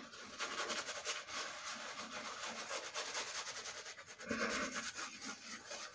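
Badger shaving brush working lather into stubble on the face: a steady, scratchy rubbing of the bristles against skin and whiskers, which grows louder for a moment past the middle.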